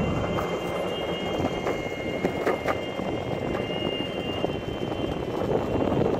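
Handling noise on a phone microphone carried while walking: fabric rustling against the mic and a steady wind rumble, with two faint steady high tones underneath.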